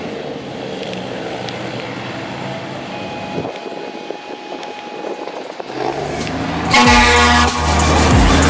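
E-One Cyclone fire engine's diesel engine running as the truck drives past, with a held tone around the middle. Loud electronic dance music starts about seven seconds in.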